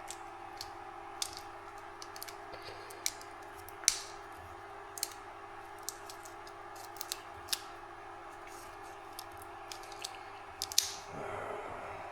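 Scattered small clicks and taps of tools and small parts being handled on a workbench, with a short rustle near the end, over a steady electrical hum.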